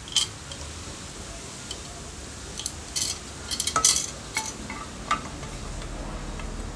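Light metallic clicks and clinks as a circular saw's lower blade guard and its wire return spring are fitted and turned on the blade spindle: one sharp click at the start, a quick run of clinks and scrapes about three to four seconds in, then a couple of single clicks.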